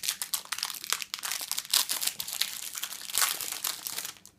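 Foil wrapper of a Panini Adrenalyn XL trading-card packet crinkling and crackling in the hands as it is opened, a dense run of sharp crackles.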